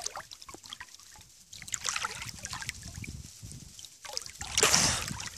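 Lake water sloshing and splashing right at the microphone as a swimmer moves in it, with a louder splash near the end.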